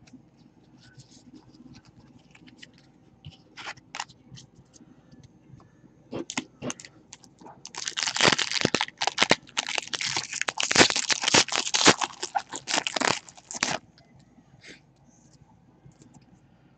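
A trading-card pack's wrapper being torn open and crinkled, a dense crackling that starts about eight seconds in and lasts about six seconds. Before it come a few light clicks of cards being handled.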